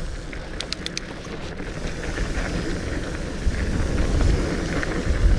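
Wind buffeting the microphone and mountain bike tyres rolling over a dirt trail, growing louder as the bike gathers speed. A few sharp clicks come between about half a second and a second and a half in.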